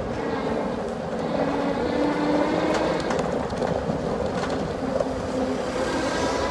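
Steady rumble of wheels rolling over rough street asphalt while moving along at riding speed.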